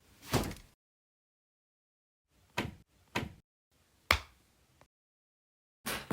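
Homemade sound effects: four short, sharp knocks or thuds, each cut off into dead silence, then a longer, louder one starting just before the end.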